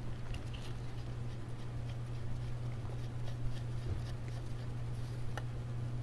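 Faint, scattered light clicks of a hex-bit screwdriver turning screws in the recesses of a drive-inverter housing, over a steady low hum.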